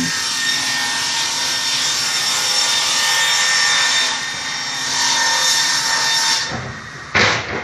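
A power saw cutting through wood: a steady rasping cut that runs for about six seconds and stops, then a short clatter near the end.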